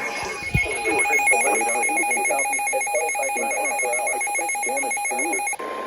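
Emergency alert broadcast tones: a loud, rapidly warbling alarm tone that, about five and a half seconds in, switches abruptly to a steady single-pitch alert tone.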